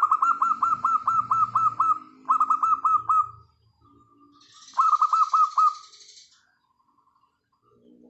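Bird calls: three loud runs of quick repeated falling notes, about five a second, over a softer low cooing that fits a zebra dove (perkutut).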